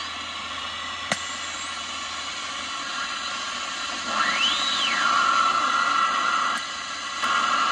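Static hiss from a Rycom R1307/GR receiver's speaker as its tuning knob is turned across the band. A click comes about a second in. Around the middle a whistle sweeps up in pitch and back down as a signal is tuned past, then holds as a steady tone for a couple of seconds.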